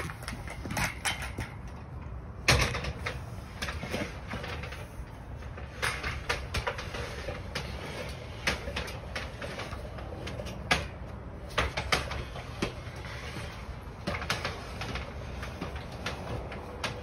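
Irregular knocks and clatter of boots and hands on an extension ladder as a worker climbs it, with one sharper knock about two and a half seconds in, over a steady low rumble.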